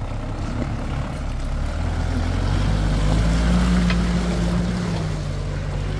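Off-road 4x4's engine working under load, a low drone that swells to its loudest about halfway through and then eases off.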